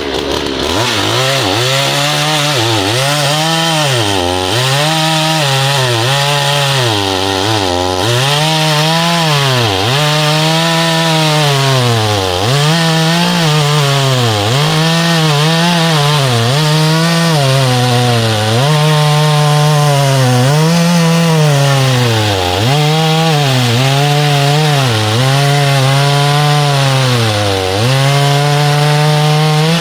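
Oleo-Mac GSH 510 two-stroke chainsaw running at full throttle while cutting through a large log. Its engine pitch drops under load and climbs back again and again, about every two seconds, as the bar bites into the wood.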